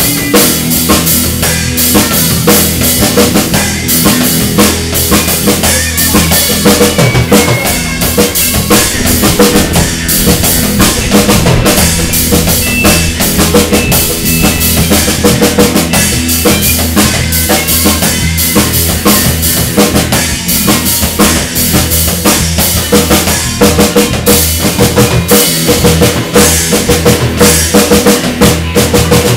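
Rock band rehearsing an instrumental number: drum kit with bass drum, snare and cymbals keeping a steady beat under electric guitar and electric bass, played loud and without pause.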